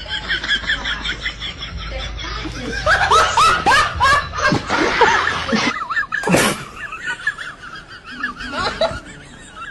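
People laughing in quick, repeated bursts of giggling and snickering, loudest in the middle stretch.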